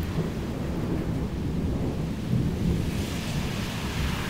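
Thunder rumbling low and continuously, with a steady hiss above it that grows brighter about three seconds in.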